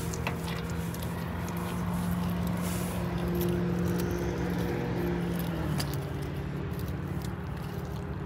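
A steady mechanical hum with a low drone that shifts slightly in pitch about six seconds in, with faint clicks and scrapes from a propane hose being worked onto an RV's quick-connect gas fitting.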